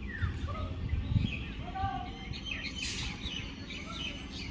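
Small birds chirping: many short, quick calls from several birds, over a steady low rumble.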